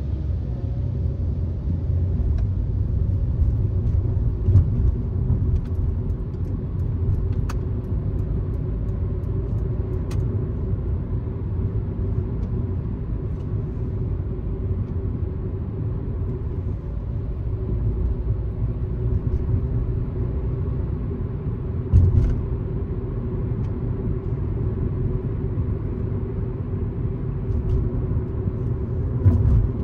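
Steady low road rumble of a car driving on a highway, with tyre and engine noise and a few short low thumps, the loudest about 22 seconds in and near the end.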